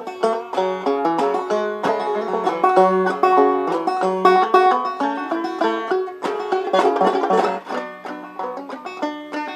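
Instrumental break played on a plucked string instrument: quick runs of short picked notes between sung verses, with a denser flurry about seven seconds in.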